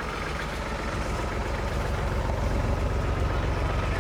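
A heavy engine running steadily, growing gradually louder.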